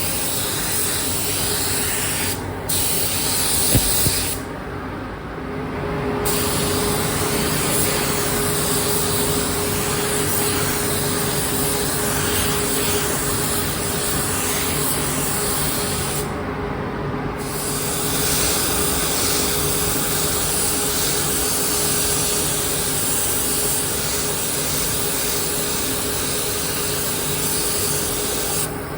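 Paint spray gun hissing as it sprays, the spray stopping briefly about two and a half seconds in, for about two seconds shortly after four seconds in, and again for about a second past the middle. A sharp click comes near four seconds in.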